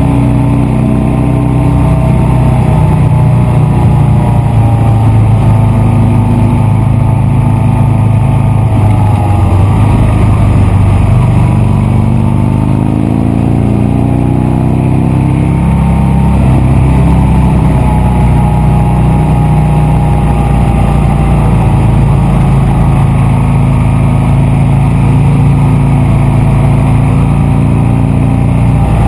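Buell Lightning XB9 SX's 984 cc V-twin engine running through its exhaust, its pitch rising and falling several times as the revs change.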